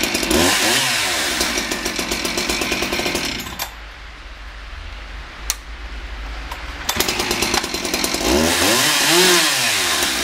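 Husqvarna 372 XP two-stroke chainsaw running at high revs, its pitch swinging up and back down. About three and a half seconds in it drops back to a steady idle. It revs up hard again about seven seconds in.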